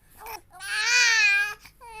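Baby crying to be picked up: a short whine, then one long wail starting about half a second in, and another cry beginning near the end.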